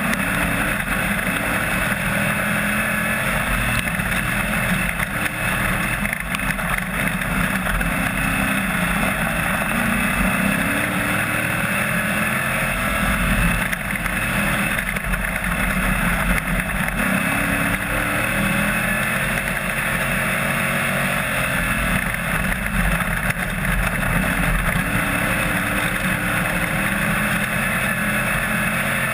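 AMCA speedway race car's engine heard from inside the cockpit, running hard, its pitch rising and falling again and again as the car accelerates and lifts around the dirt oval.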